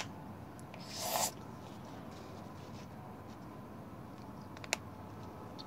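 Quiet handling of a small plastic craft paint bottle: a sharp click at the start as its cap is worked, a brief hissing rustle about a second in, and one faint click near the end, over low room noise.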